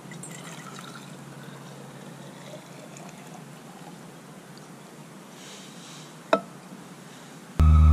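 Hot water pouring from a small camping pot into an insulated flask, a quiet trickle, with a single sharp knock about six seconds in. A loud steady hum cuts in abruptly at the very end.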